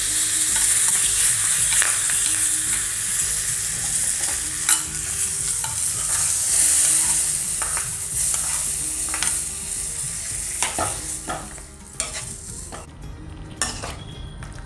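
Crushed black pepper and curry leaves sizzling in hot oil as they are tempered, stirred with scattered clicks of the spoon against the pan. The sizzle dies away near the end.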